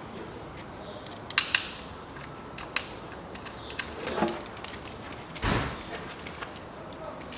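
Tools and ignition coils clicking and clinking as the coils are refitted and bolted down on the engine. There is a quick cluster of sharp clicks about a second in, single clicks later, and a brief rustle a little past five seconds.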